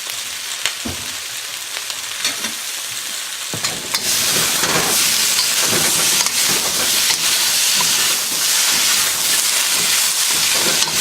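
Rice cakes, chicken and vegetables sizzling in a hot wok on high heat as they are stir-fried. The sizzling gets markedly louder about four seconds in, with a few faint knocks from the stirring.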